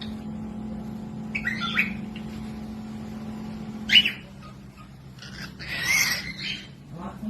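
Cockatiels calling: a short chirping call about one and a half seconds in, a sharp short call at about four seconds, and a longer, louder squawk near six seconds, over a low steady hum that stops at about four seconds.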